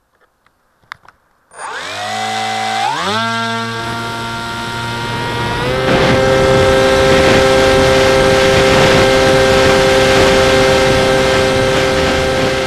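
Onboard recording of an RC foam plane's electric motor and propeller: after a few faint clicks the motor starts with a whine, the throttle is stepped up twice, then opened to a steady full-power whine about six seconds in as the plane flies, with air rushing over the camera microphone.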